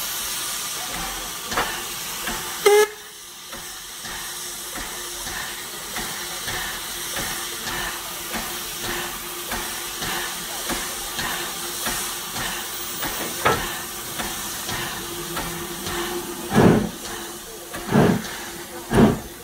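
W24 Calbourne, an Adams O2 class 0-4-4 tank engine, working a train, heard from a carriage behind it: a steady hiss of steam with soft rhythmic beats and a short squeal about three seconds in. From about seventeen seconds on, loud exhaust chuffs come about one a second.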